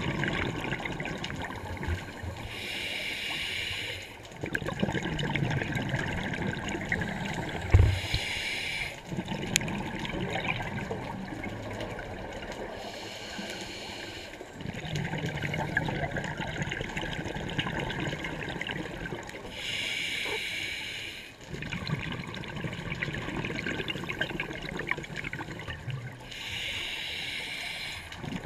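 Scuba diver breathing through a regulator underwater: a short hissing inhale every five to six seconds, each followed by a longer bubbling exhale. A single sharp knock about eight seconds in.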